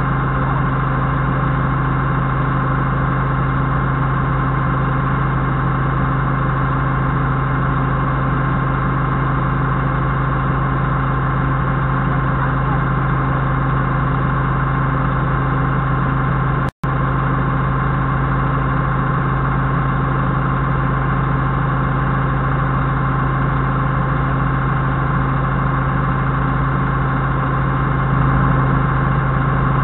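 Doosan 4.5-ton forklift engine idling steadily, a constant low hum with a fixed whine over it. The sound cuts out for an instant a little past halfway, and grows slightly louder near the end.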